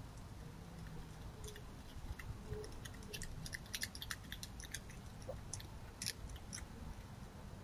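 Red fox chewing food: an irregular run of short, wet clicks and crunches, thickest in the middle.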